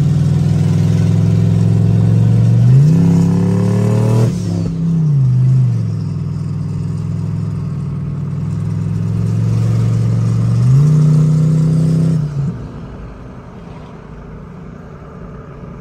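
Turbocharged pickup truck engine under hard throttle, heard from inside the cab: the revs jump up twice, at about three and eleven seconds, falling back once in between as the transmission shifts, with a hiss over the loudest stretches. Near the end the throttle is lifted and the engine drops to a much quieter cruise.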